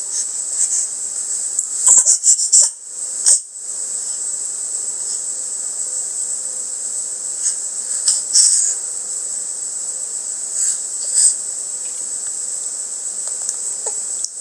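A steady high-pitched hiss runs throughout, with short breathy bursts from an infant about two, three, eight and eleven seconds in.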